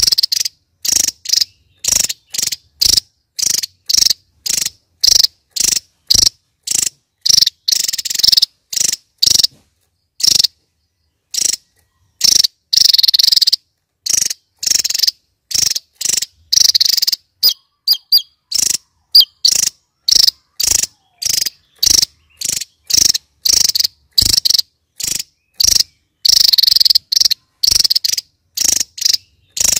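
Javan tesia singing in its rapid-fire 'nembak' style: a long string of short, high-pitched notes, about two or three a second, with a brief break about ten seconds in.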